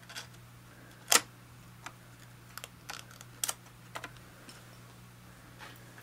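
Scattered light clicks and taps of hands working in an iMac's RAM bay, tucking the little flaps back in over the seated memory sticks, with one louder click about a second in.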